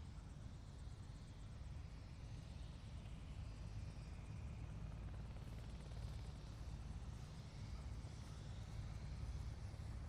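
Helicopter running, a steady low rumble with no sudden changes.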